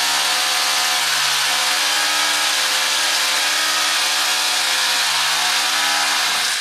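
Water running through the plumbing of a newly fitted under-sink water filter, with a loud, steady buzzing hum at one constant pitch over the hiss of the flow; the hum stops at the very end. The hum is taken for air being driven out of the freshly fitted filter.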